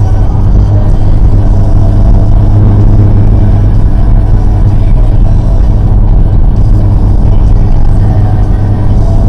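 Steady low drone of a Volkswagen Golf R's engine and tyres heard from inside the cabin while driving.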